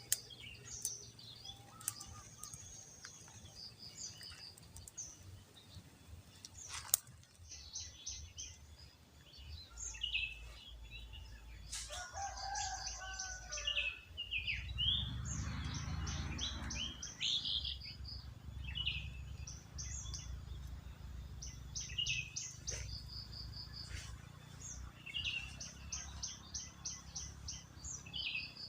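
Small birds chirping in quick runs of short, high notes, again and again. About halfway through a low rumbling noise rises for a few seconds, and a few sharp clicks come through.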